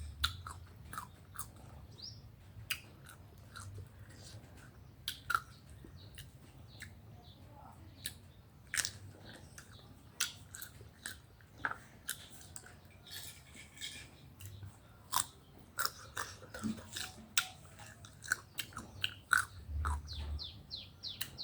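People biting and chewing crisp, unripe Kaew mango: irregular close crunches and chewing clicks, with a quick run of ticks near the end.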